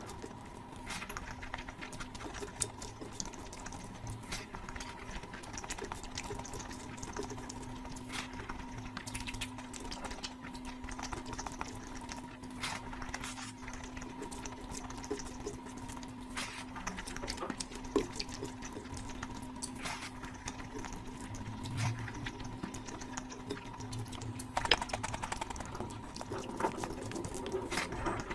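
Close-miked wet eating sounds: chewing and smacking through curry and rice, a steady run of small clicks and squelches.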